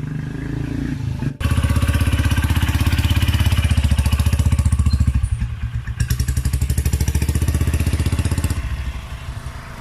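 An engine running close by with a steady, even pulse. It cuts in abruptly about a second in and eases off near the end.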